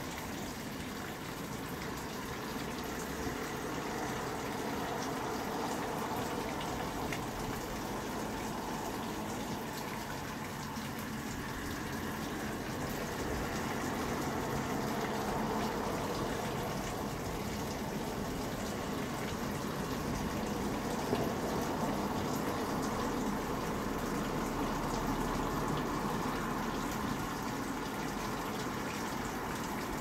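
Tap water running steadily, an even rushing sound that swells a little and eases again.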